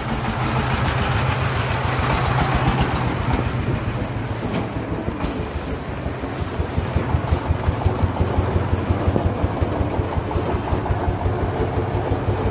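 Three-wheeled truck's single-cylinder engine running with a rapid, even chugging.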